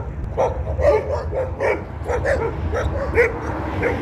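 A dog barking in short yips, about three a second, over a steady low rumble.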